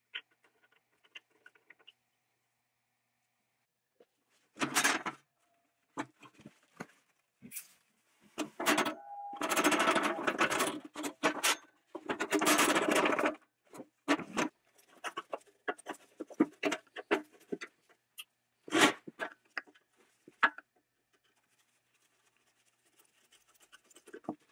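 Old sandblasting grit pouring and rattling out of a spark plug cleaner's tipped metal housing into a cardboard box, in two long runs about a third of the way in. Scattered knocks and clatters come from the machine being handled, with a sharp one before the pour and another well after it.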